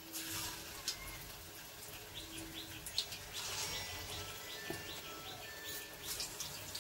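A small bird chirping in a quick, regular series of short high notes, about three a second, starting about two seconds in, over faint background noise, with a few sharp clicks earlier on.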